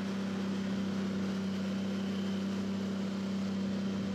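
Motorboat engine running at a steady speed, a constant low drone, with wind and water noise.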